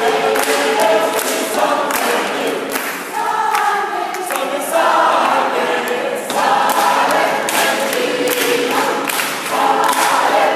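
Gospel choir of men and women singing together, with handclaps sounding through the song.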